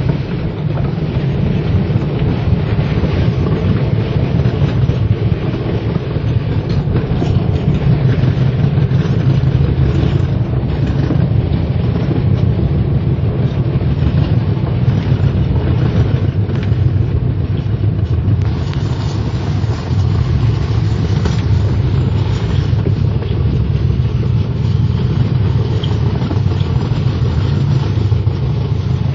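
Alpine slide sled running down its trough-shaped track: a steady, loud rumble of its wheels rolling on the slide channel.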